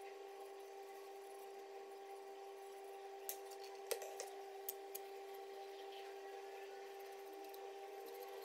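A paintbrush working white glue over MDF speaker-box panels: faint brushing and handling, with a few light taps and clicks around the middle, over a steady hum.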